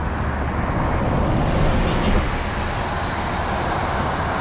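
Road traffic passing close by: a steady hiss of tyres and engine noise from passing vehicles, swelling briefly about two seconds in.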